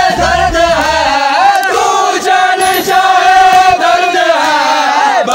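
Large crowd of men chanting a noha in unison, loud and unbroken, the refrain sung in long drawn-out phrases.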